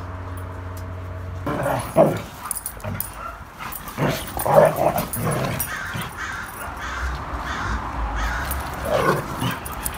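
Dogs play-fighting, with barks and vocal bursts that come and go; the loudest are about two seconds in and around four to five seconds in. A steady low hum runs during the first second and a half.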